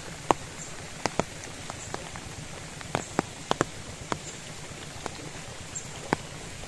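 Irregular sharp taps and knocks, sometimes two or three in quick succession, over a steady background hiss.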